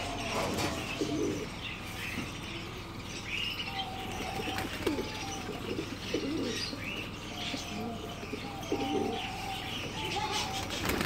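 Domestic pigeons cooing over and over, with wings flapping as birds flutter onto and off a person's hands and arms to eat seed, and thin high chirps scattered among the coos.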